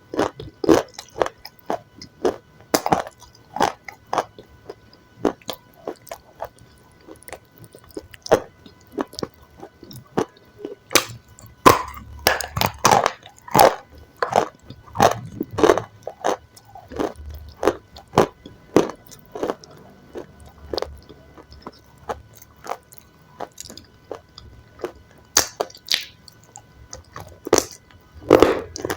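Close-miked eating of crunchy food: irregular crisp bites and crunching chews, several a second at times.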